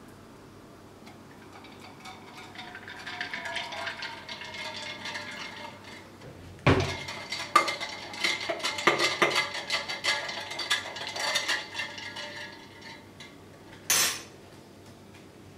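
Milk poured from a carton into a glass of iced coffee, then a long metal bar spoon stirring it, clinking rapidly against the ice cubes and the glass for several seconds. One sharp clink of the spoon on the glass near the end.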